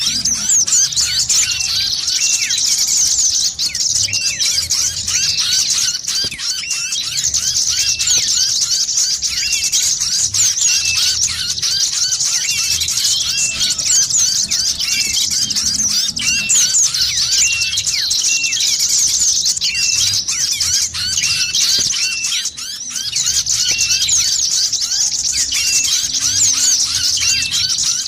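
Dense chorus of many small birds chirping and twittering rapidly without a break, a bird-lure (pikat) recording for drawing small birds in. Faint low thumps sound underneath every second or two.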